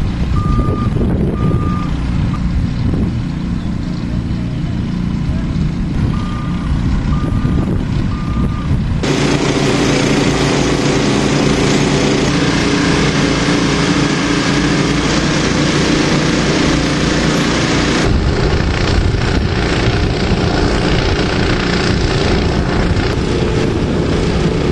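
Telehandler's diesel engine running, with its reversing alarm giving short runs of evenly spaced single-pitch beeps, about one a second, during the first third. About a third of the way in the engine noise becomes louder and fuller with a steady hum.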